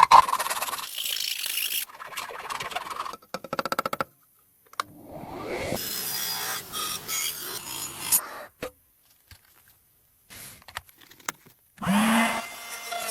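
Abrasive scraping and rasping, as of filing or sanding, in short separate bursts broken by silences, with a quick run of clicks between about three and four seconds in. A pitched sound begins near the end.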